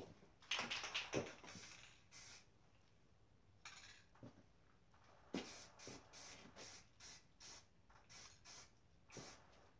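Aerosol spray-paint can sprayed in short hissing bursts: a few spaced ones, then about two a second from around five seconds in, with a couple of light knocks.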